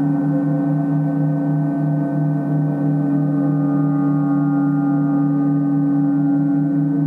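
Several large hanging gongs played continuously, their many overtones blending into a steady, sustained ringing wash with no distinct strikes. A low tone in the wash pulses and wavers underneath.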